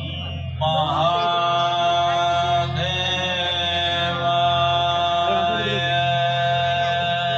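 A male voice chanting a Shiva mantra, holding one long steady note over a low continuous drone; the note begins about half a second in.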